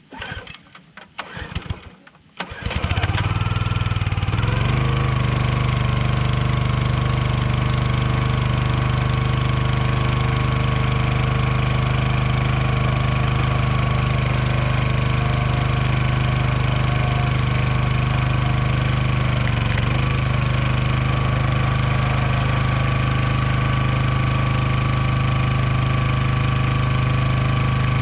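Small gas engine on a hydraulic log splitter being pull-started: a few quick tugs on the cord, then it catches about two and a half seconds in and settles into a steady run.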